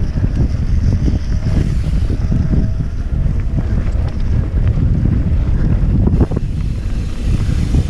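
Wind buffeting the microphone of a camera on a mountain bike descending fast on a dirt trail, over a steady low rumble of tyres on rough ground with scattered short knocks and rattles from the bike.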